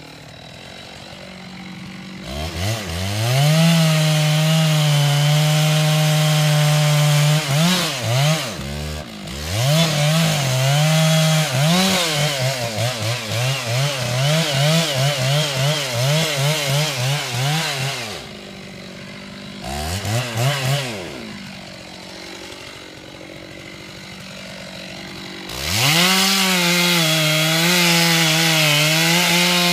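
Two-stroke chainsaw cutting into the base of a large red oak trunk. It idles, revs up about two seconds in, and runs at full throttle in the cut, its pitch wavering as the chain loads in the wood. Past the middle it drops back to idle for several seconds with one brief rev, then revs up and cuts again near the end.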